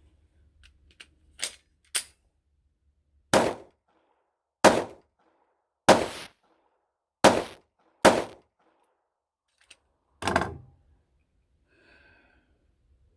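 Gunshots: about eight single shots fired one at a time at an uneven pace, roughly a second or so apart. The first two are lighter, and the last comes after a pause of about two seconds.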